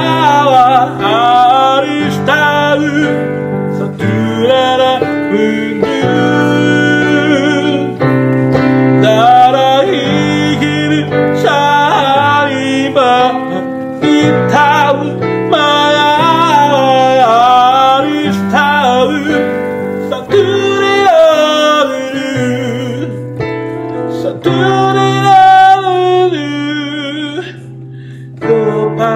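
Background music: a song with a singing voice over steady chords, briefly quieter near the end.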